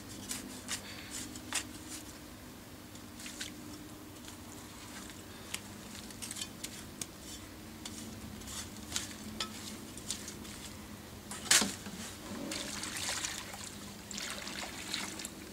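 Small rustles and clicks of hands working the soil and dry leaves at the base of a newly planted thuja, with one sharp knock a little after the middle. Near the end, water poured from a plastic watering can splashes onto the soil around the trunk.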